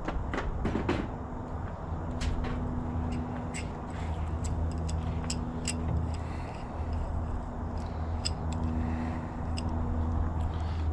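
Scattered light metallic clicks and taps from hand tools and small parts on a bicycle's bottom bracket being taken apart, over a low hum that drops out and returns.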